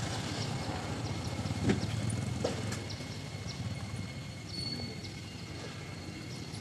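Outdoor background noise: a steady low rumble with scattered faint clicks and a brief high whistle just past the middle.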